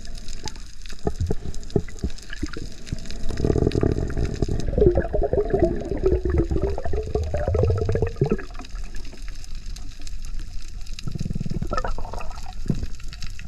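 Water bubbling and churning around an underwater camera, with scattered clicks. There is a louder bout of gurgling for several seconds near the middle and a shorter one near the end.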